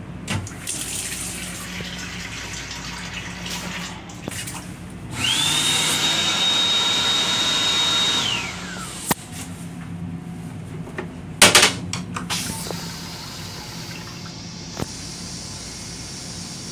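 Hand dryer in a Metro-North M7 railcar restroom switching on with a high motor whine, running for about three seconds, then winding down with a falling pitch. A few seconds later the toilet flushes with a brief, loud rush.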